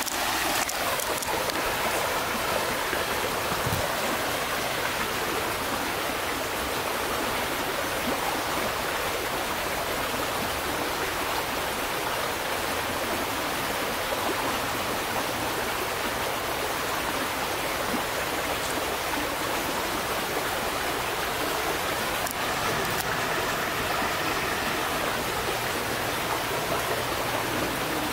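A creek running over stones, a steady rush of water.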